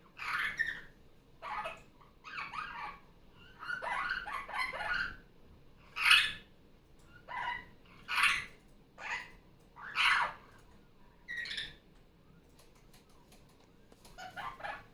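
Barraband parakeet (superb parrot) giving a series of loud, harsh calls, about a dozen short bursts separated by brief pauses, the loudest about six and ten seconds in.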